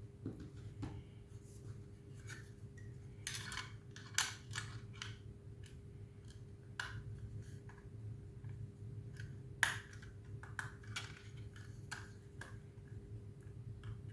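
Faint handling noises of a laptop's 2.5-inch drive and its caddy being worked apart by hand: scattered light clicks and short scrapes of plastic and metal. Two sharper clicks stand out, about 4 seconds in and near 10 seconds, over a steady low hum.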